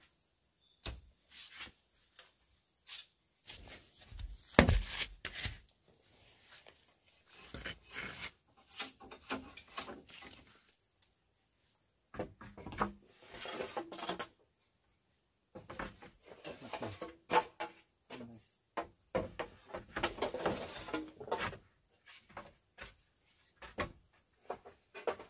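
Irregular knocks, clatters and short rustling scrapes of hand work, the loudest knock about four and a half seconds in, over a faint steady high insect drone.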